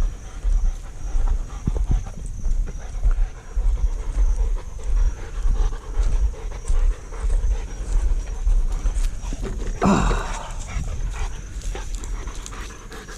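Bullmastiff panting hard and rhythmically after running, winded from chasing. About ten seconds in, a short, louder sound slides up and down in pitch.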